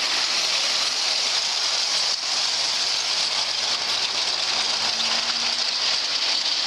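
Large model train running on its track, a steady rattling whir of wheels and motor.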